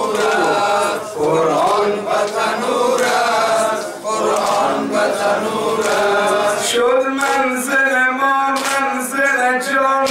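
Shia noha (Muharram lament) in Persian: a group of voices chants the refrain together for the first few seconds, then a lone male reciter sings into a microphone from about six seconds in. Regular sharp slaps of chest-beating (matam) keep the beat under the solo voice.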